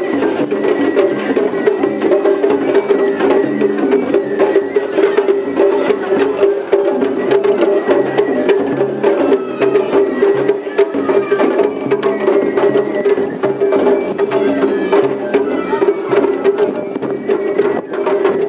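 Japanese festival float music (matsuri-bayashi): drums and sharp wood-block-like percussion struck in a rapid continuous rhythm, over a steady sustained tone.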